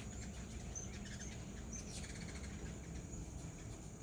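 Hummingbirds giving short, high, squeaky chirps several times in the first half, over a steady high buzz of insects.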